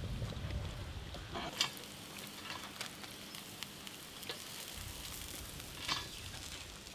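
Sizzling and scattered crackles from a charcoal fire under a whole beef carcass roasting on a spit, with a couple of louder pops about one and a half seconds in and near the end.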